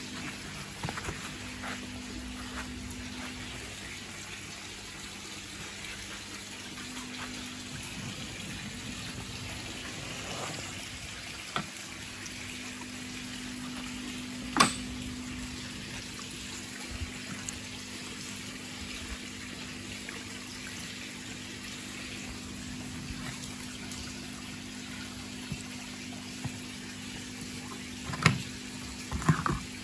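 Steady running water with a steady low hum under it, broken by a few sharp knocks: the loudest about halfway through, and two more near the end.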